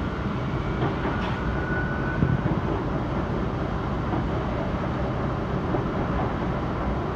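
Passenger train running, heard from inside the carriage as a steady rumble of wheels on the rails. A faint high squeal comes in briefly about a second in.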